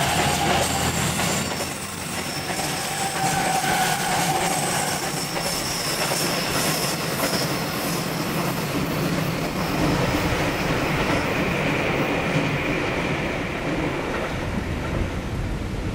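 A train passing close by on the Tokaido Main Line, its wheels clattering over the rail joints, with thin high squealing tones that come and go.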